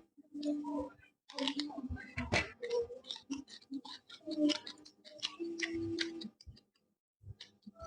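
Close-up eating sounds: a stream of sharp mouth clicks and smacks of chewing, with short low hums in between.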